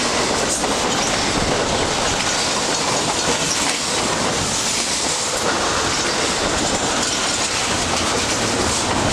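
Double-stack intermodal container cars of a long freight train rolling past, a steady noise of steel wheels on the rails.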